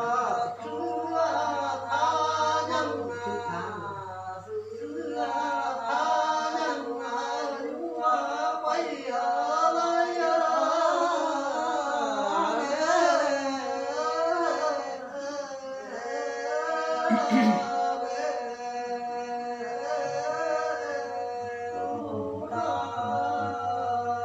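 Unaccompanied hà lều folk singing: one voice in a slow, wavering, heavily ornamented line, over a steady hum. A brief knock about seventeen seconds in.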